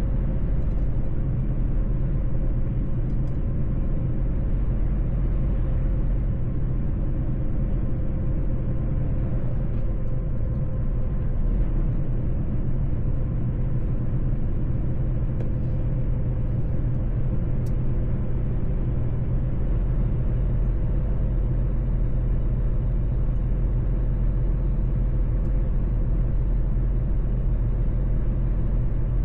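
Mercedes-Benz truck driving at a steady pace: a constant low engine and road rumble with a faint steady hum over it.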